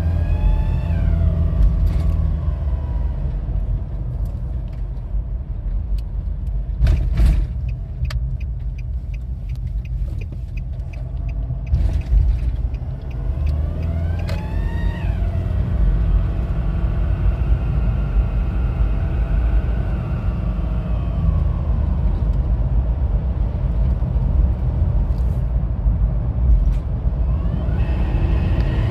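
Nissan Pathfinder 2.5 dCi diesel engine running, with a squeak that glides up in pitch as the throttle is pressed and back down as it is released, a few times over. Two workshops have found no holes or damage in the vacuum pipes, so the cause of the squeak is unknown.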